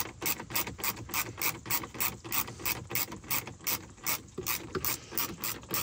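Ratcheting screwdriver clicking in a steady rhythm, about five clicks a second, as a plastic trim screw is backed out.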